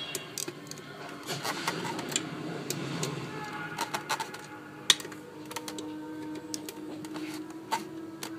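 Irregular sharp clicks and taps, like metal engine parts and tools being handled on a bench, over a faint television soundtrack; a steady low hum comes in about halfway through.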